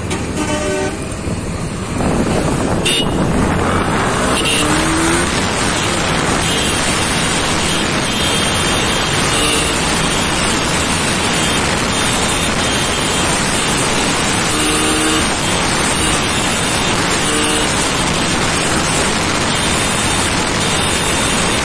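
Yamaha R15 V3 sport motorcycle's single-cylinder 155 cc engine running hard at speed under a dense, steady rush of wind and road noise. A horn sounds for about the first two seconds.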